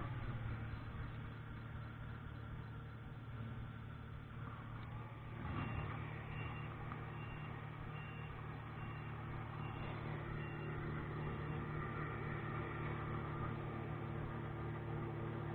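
Tractor diesel engine running steadily, a low hum heard from the cab, with a brief swell a little after five seconds in.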